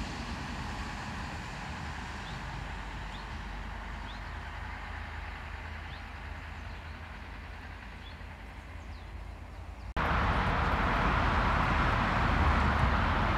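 Siemens RegioSprinter diesel railcar running and slowly fading as it moves away. About ten seconds in, the sound cuts suddenly to a louder, steady rushing noise.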